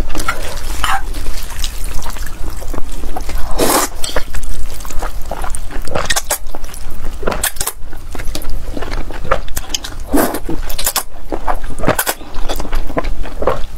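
Glass noodles slurped into the mouth close to a clip-on microphone, several long slurps every couple of seconds.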